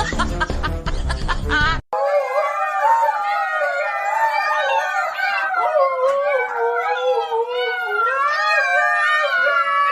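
Dogs howling together in long, wavering, overlapping notes. Before them, backing music with a steady beat runs for about two seconds and cuts off abruptly.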